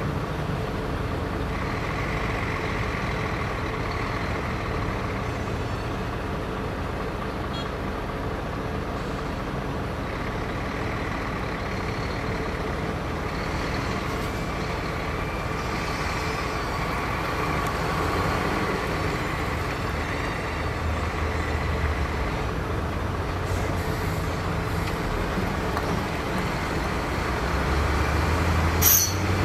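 Heavy diesel engine of earthmoving equipment running steadily under load, with a sharp metallic knock near the end.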